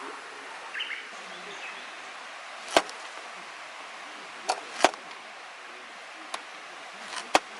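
Campfire crackling: half a dozen sharp, irregular pops from burning firewood over a steady low hiss.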